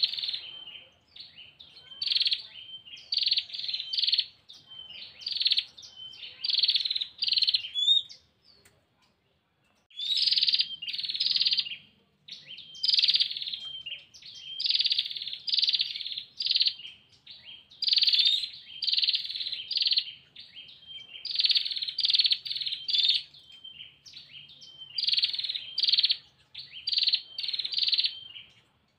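Female prinia (prenjak) giving its rapid trilling call, the 'ngetir' call a hen uses to summon a male, repeated in bursts of quick high notes with a short pause about a third of the way through.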